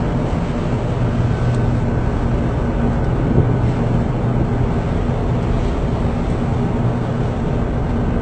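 A boat's engine drones steadily under loud wind and sea noise at sea.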